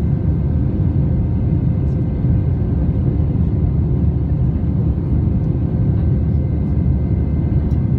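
Airbus A320 cabin roar in the climb after takeoff, heard inside the cabin from a window seat: a loud, steady, low rumble of the engines and airflow, with a few faint steady tones above it.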